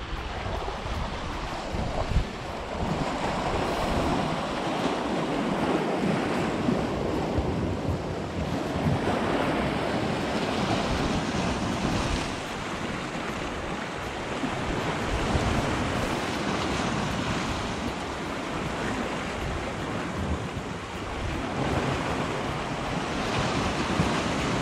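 Sea swell surging and breaking against shore rocks, rising and easing in waves of white water, with wind buffeting the microphone.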